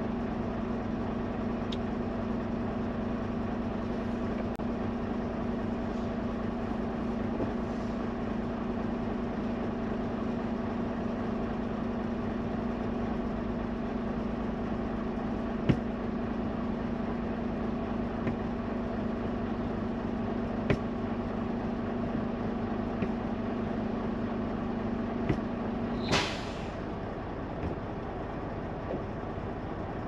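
Parked semi-truck idling, heard from inside the cab as a steady low hum. About 26 seconds in there is a short, sharp hiss of released air, and a steady tone in the hum stops at the same moment.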